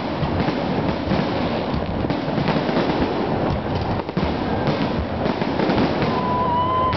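Fireworks finale: aerial shells bursting in quick succession, a continuous run of bangs and crackle with no gaps. A short steady high tone sounds about six seconds in.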